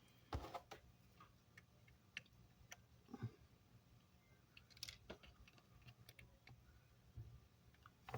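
Light, scattered clicks and taps of small tools and parts being handled on an electronics repair bench, about a dozen in all, over a faint low steady hum.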